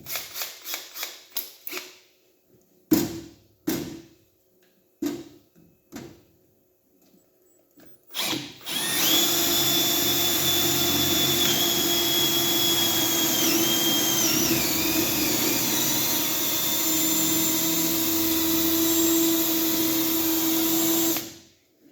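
Milwaukee M12 Fuel brushless and M18 brushed cordless drills running together under load, boring holes in wood for about twelve seconds, then stopping sharply near the end. Before that come a quick series of clicks and a few separate knocks.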